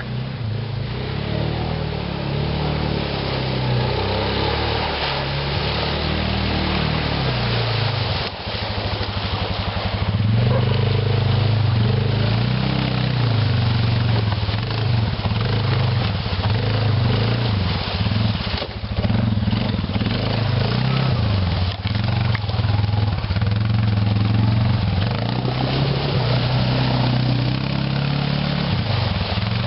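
ATV engine running, its pitch rising and falling again and again with the throttle, over a steady rushing noise.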